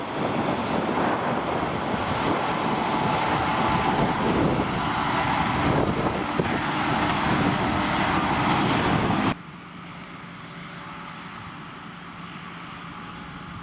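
Potato harvesting machinery running: a loud, dense clattering mechanical din that drops suddenly about nine seconds in to a quieter, steady engine hum.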